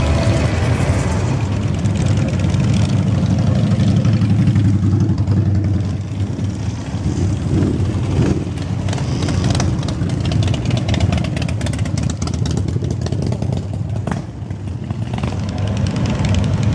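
A stream of motorcycles and scooters riding slowly past, a steady low engine rumble that dips briefly about six seconds in and again near the end.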